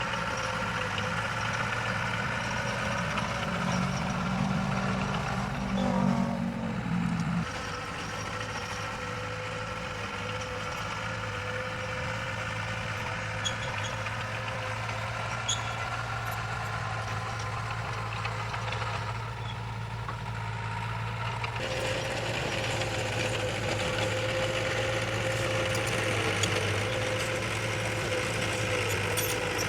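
Heavy diesel engine of earthmoving machinery running steadily, its note changing briefly about six seconds in and again about twenty-two seconds in.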